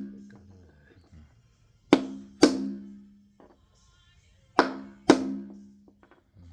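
Background music with a slow beat: two drum hits about half a second apart, repeating roughly every two and a half seconds, each with a ringing low note.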